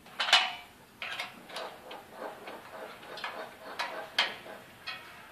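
A dozen or so irregular short metallic clicks and scrapes of pliers working on a steel curtain-bracket part, the loudest right at the start.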